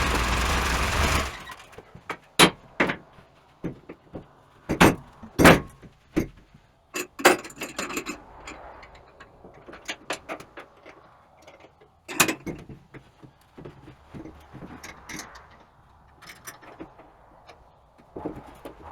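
A loud, even machine noise stops about a second in. Scattered knocks and clunks follow, a few of them sharp, as boards and parts of a homemade sawmill are handled.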